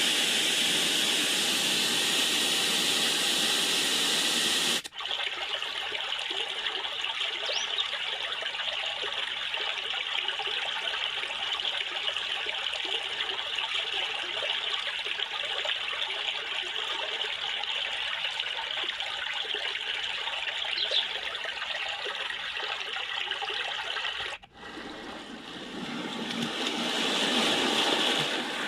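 White noise machine sound tracks: a steady hiss, cut off abruptly about five seconds in for running water trickling steadily, which is cut off near the end for another water sound that swells up.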